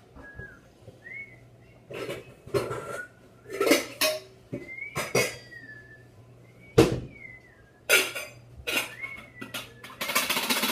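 Dishes and metal utensils clinking and clattering on a kitchen table in a string of separate knocks that bunch into a busy rattle near the end. Short high whistle-like chirps sound now and then between them.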